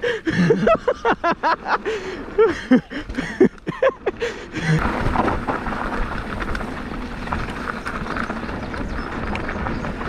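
A voice whose words are not made out for the first five seconds or so, then a steady rush of wind and rolling noise from a mountain bike riding a trail.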